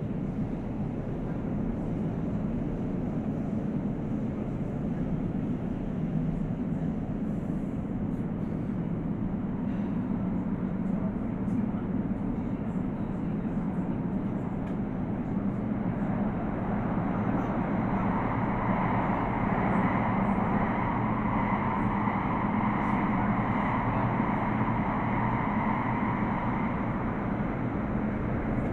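Inside an Elizabeth line train running between stations: a steady low rumble of wheels and carriage. About halfway through, a higher whine joins and grows slightly louder.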